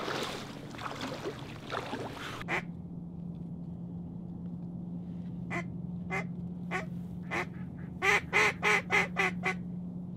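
Duck quacking, mallard-style: a few single quacks spaced out, then a quick run of about seven quacks near the end. A steady low hum runs underneath from a few seconds in.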